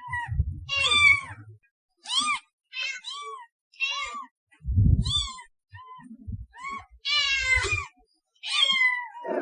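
Cat meowing over and over: about ten short, high meows, each rising and falling in pitch, with a longer, wavering meow near the end. Low thumps sound under a few of the calls.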